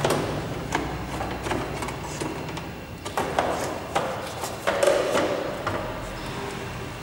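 Plastic headlight and handlebar cover of a Honda scooter being lifted off and handled: a series of plastic clicks and knocks, the loudest about five seconds in.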